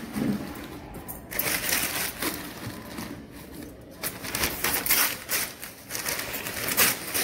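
Newspaper being crumpled and pushed into a ceramic jug, crinkling and rustling in irregular bursts.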